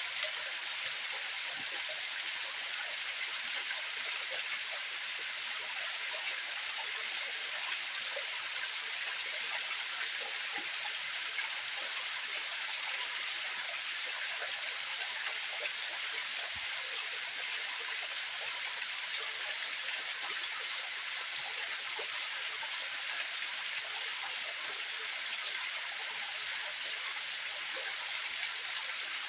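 Steady rush of falling water from a waterfall, an even hiss that holds unchanged throughout.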